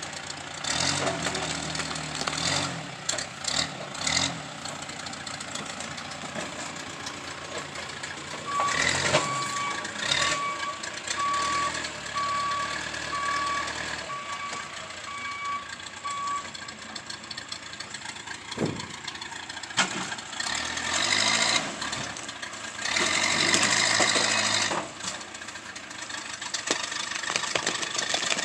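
Tractor engine running with a reversing alarm beeping at a steady pace for about eight seconds partway through, among occasional knocks and clanks.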